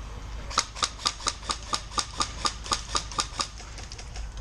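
Airsoft rifle firing a steady string of sharp shots, about four a second, which stops about three and a half seconds in. Wind rumbles on the microphone underneath.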